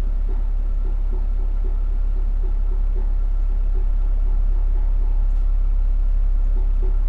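A heat pump running: a loud, steady low hum with a faint steady whine above it. Faint light rhythmic ticking, a few per second, comes in the first few seconds and again near the end.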